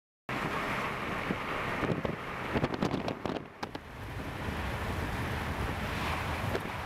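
Wind buffeting the microphone and road noise from a moving car on a highway, cutting in abruptly just after the start, with a cluster of sharp knocks about halfway through.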